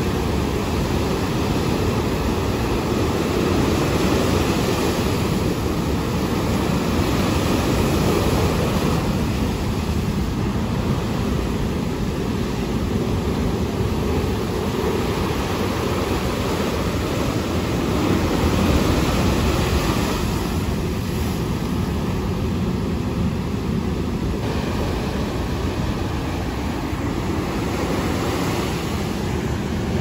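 Heavy surf breaking over rocks and washing up the sand: a continuous rush of noise that swells a little every few seconds.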